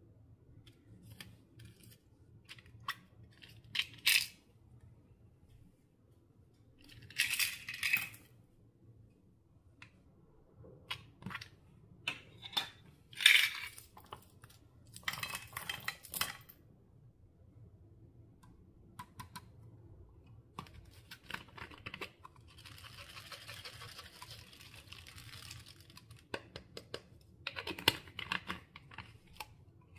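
Clear slime being worked by hand, with makeup being mixed in: irregular sticky clicks and pops, broken by a few louder bursts of noise about a second long and a softer rustling stretch later on.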